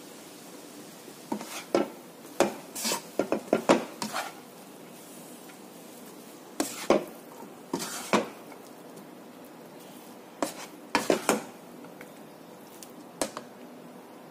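Spatula scraping and knocking against a frying pan in irregular bursts as fried rice vermicelli is tossed, over a faint steady sizzle.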